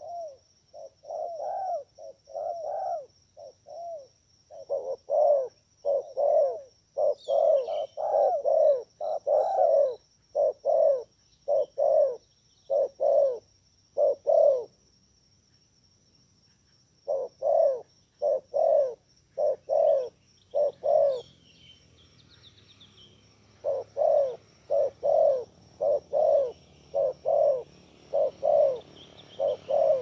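Dove cooing: short low notes repeated about two a second in long runs, broken by two pauses of a couple of seconds. Behind it there is a thin, steady high-pitched trill and a few faint small-bird chirps.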